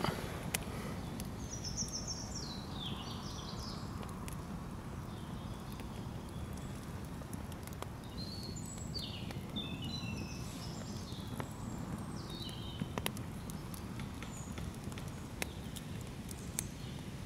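Campfire crackling, with scattered sharp pops over a low steady rumble. A small songbird sings two runs of quick high notes that step downward, the first starting about a second and a half in and the second from about eight seconds.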